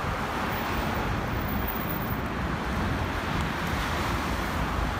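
Steady wind noise on the microphone mixed with the rush of road traffic passing nearby.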